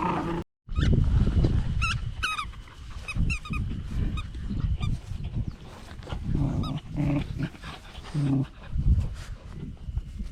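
English bulldog puppies playing: short high whimpering squeals in the first half, then low grunts and growls, with scuffling thumps throughout.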